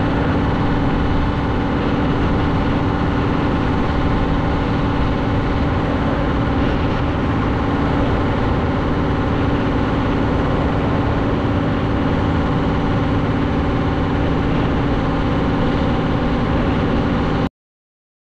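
Scania truck's diesel engine running steadily in a low gear with a constant drone and road noise, holding the truck at a steady speed on a steep descent. Cuts off suddenly near the end.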